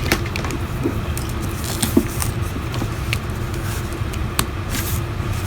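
Scattered small clicks and taps of a phone and tools being handled, over a steady low background hum.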